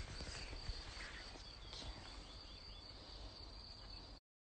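Quiet outdoor ambience: a steady high-pitched insect drone over low rumble from the phone being handled, with a few faint high chirps. It cuts off suddenly near the end as the stream ends.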